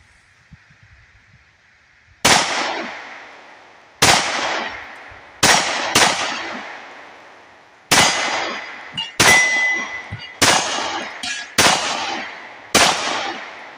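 Stoeger STR-9C 9mm compact pistol fired about ten times at an uneven pace, including a quick double tap, each shot a sharp crack with an echoing tail. After one shot near the middle, a steel target plate rings briefly when it is hit.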